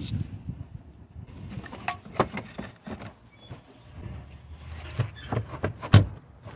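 Irregular clicks and knocks of a hand tool and metal parts being handled while the battery compartment hardware is fastened, with the loudest knock near the end.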